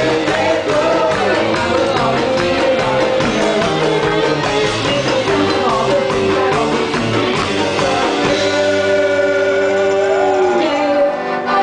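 Live band music: a piano accordion and electric guitar over drums, with a woman's voice singing. About eight and a half seconds in the drums drop out and long held accordion chords carry on.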